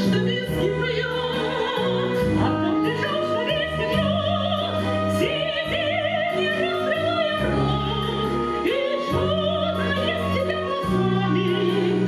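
Women singing an operetta number in classical style with wide vibrato, over instrumental accompaniment with sustained low notes.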